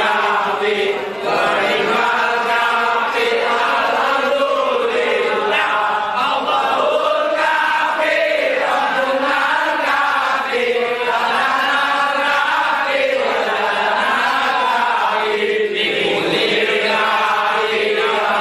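A group of men chanting sholawat, Islamic devotional praise, together in unison with a steady melodic rise and fall.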